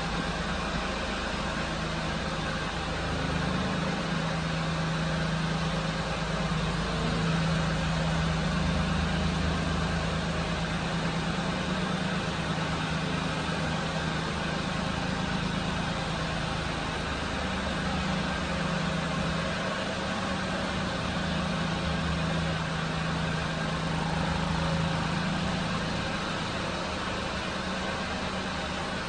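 1995 Mitsubishi Minicab truck's small three-cylinder engine idling steadily, a low even hum.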